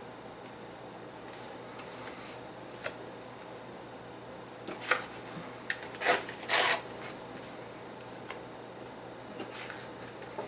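Paper being handled and torn: scattered short rustles, with two louder rips about six seconds in.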